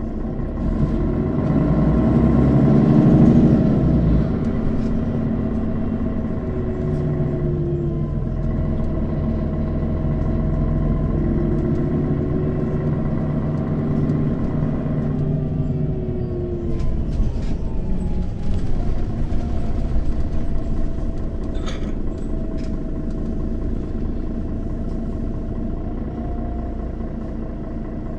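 Mercedes-Benz O 530 Citaro city bus engine accelerating, its pitch rising then easing off in the first few seconds. It runs on with several pitch glides, then slows with falling pitch about sixteen seconds in, and a few sharp clicks come shortly after.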